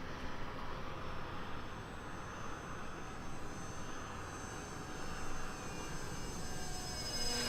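Brushless electric motor and propeller of a small RC Cessna 182 model airplane in flight: a faint high whine that drifts in pitch and grows louder near the end, over a steady low rumble.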